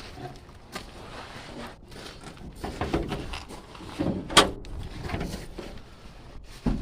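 Handling noises and clunks of an old pickup truck's door being opened, with a sharp metal click about four and a half seconds in and a thump near the end.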